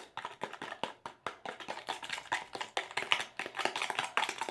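A spoon stirring a bowl of homemade slime made from dish soap and salt: a quick, irregular run of clicks and taps, several a second.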